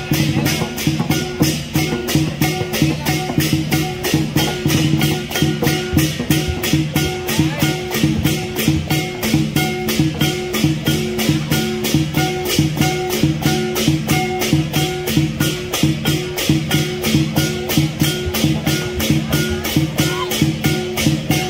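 Lion dance drum, cymbals and gong playing a fast, steady beat, about four strokes a second, with the cymbal clashes on every beat.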